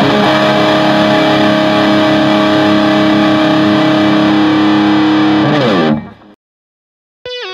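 A distorted electric guitar chord rings out loud and sustained for about five seconds. Its pitch then slides downward as it dies away, and it cuts out, leaving about a second of silence.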